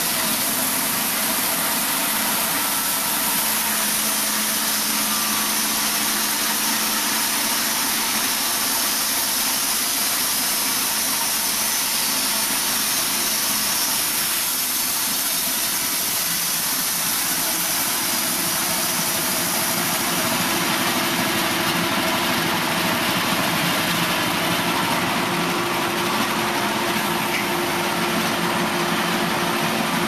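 Norwood LumberMate 2000 portable bandsaw mill running steadily: its engine drones while the band blade saws through an elm log, with a constant high hiss over the engine.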